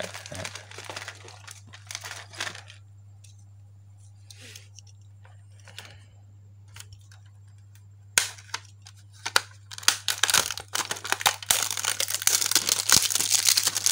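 Steady low hum under intermittent crackling and rustling; the crackling thins out in the middle and grows dense near the end.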